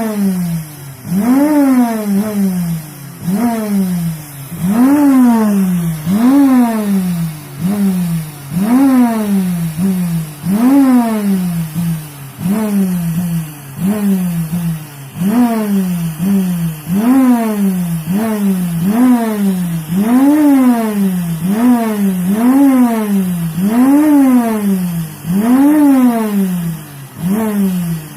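Vacuum cleaner motor revving up and dropping back again and again on its own, about once every one and a half seconds, a rising then falling whine. This surging is a fault in the vacuum cleaner.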